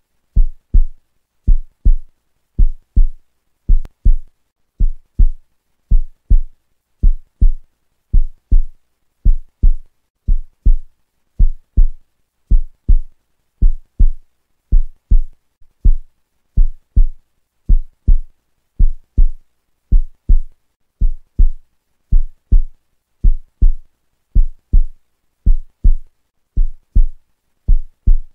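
Background track of deep, low double thumps in a heartbeat rhythm, repeating steadily about one pair every second and a half, with nothing else over it.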